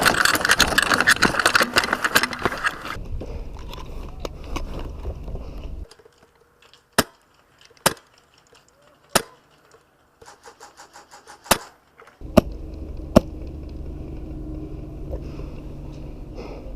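Airsoft gunfire: several sharp single shots about a second apart, and a short rapid burst a little past the middle. Dense rustling movement noise comes before them.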